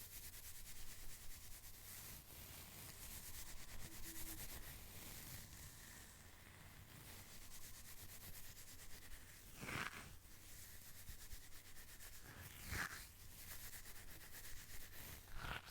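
Fingernails scratching and rubbing rapidly over a packaging surface in quick, continuous strokes, with a few louder swipes near the middle and end.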